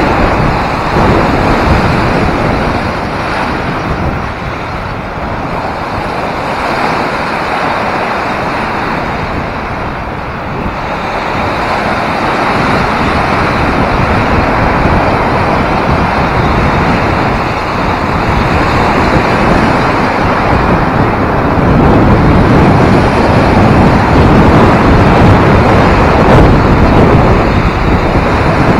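Wind blowing hard across the microphone over the rush of lake waves breaking against shore ice. The noise eases for a few seconds and then builds again.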